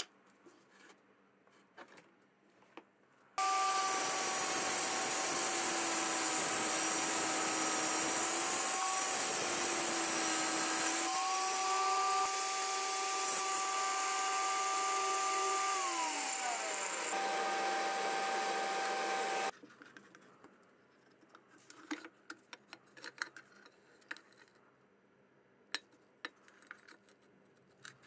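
Angle grinder with a cutting disc, mounted on a sliding tile-cutter jig, cutting through a tile. It starts abruptly about three seconds in, runs with a steady whine for about sixteen seconds, and cuts off suddenly. Some of its tones drop in pitch a few seconds before it stops. Small handling clicks come before and after.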